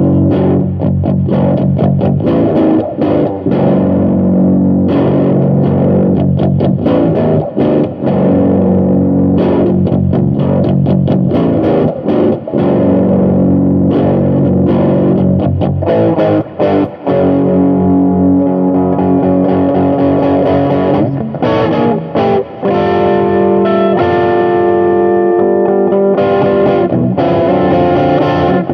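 Eight-string electric guitar played with heavy distortion, a blues line of chords and quickly picked notes; in the second half it moves to longer held notes that ring out.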